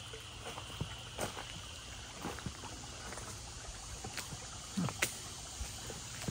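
Irregular footsteps and scuffs of someone walking through a small culvert tunnel, over a steady low wash of water running along the ditch through it. The louder steps land a little after the first second and around the fifth second.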